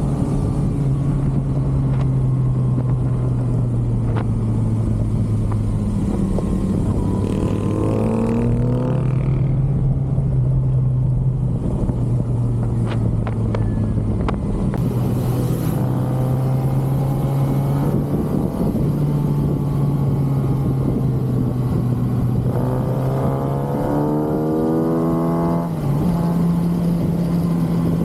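A 2023 Kawasaki ZX-6R's stock inline-four engine running on the road, its note mostly steady at cruise and rising twice as the throttle is opened, about a third of the way in and again near the end.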